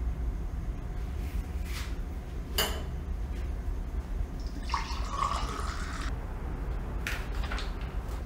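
A low, steady rumbling drone, with a few sharp clicks over it and a short hissing, trickling noise about five seconds in.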